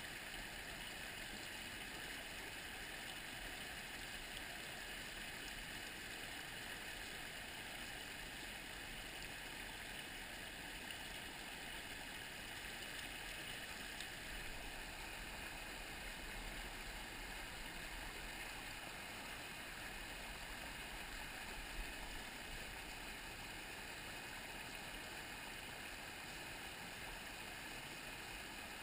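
A small mountain brook running over rocks in a shallow riffle, a steady, even rush of water.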